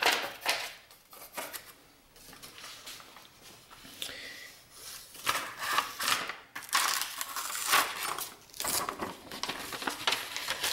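A sheet of paper rustling and crinkling as a taped-on paper tracing is pulled off the end of a mill table. It is quieter for a few seconds, then louder and denser from about five seconds in.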